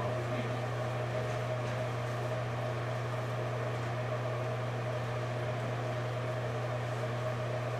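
A steady low hum with an even hiss under it, unchanging throughout, with no distinct knocks or clicks.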